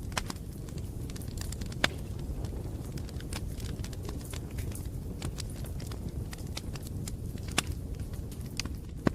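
Bonfire crackling: irregular snaps and pops of burning wood over a steady low rumble of the flames, with a few sharper pops standing out.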